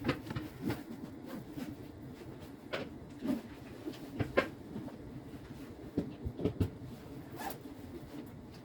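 Scattered light clicks and knocks, a dozen or so at irregular intervals, over a low steady hum.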